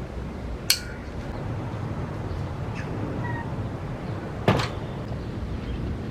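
Two sharp knocks about four seconds apart, the first with a brief ringing after it, over a steady low hum.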